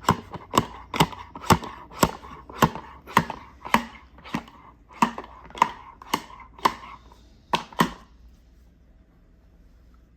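A Play-Doh toy tool chopping down through play-doh onto a hard surface: a run of sharp knocks about two a second that stops about eight seconds in.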